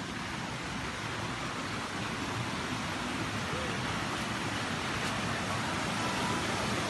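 Rushing water of a small river waterfall, a steady hiss that grows slowly louder.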